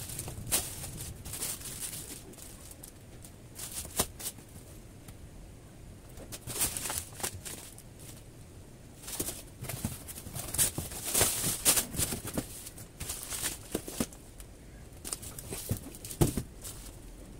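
Clear plastic packaging bags and a paper padded mailer crinkling and rustling as they are handled and lifted out of a cardboard shipping box. Irregular rustles, busiest past the middle, with a few sharp knocks.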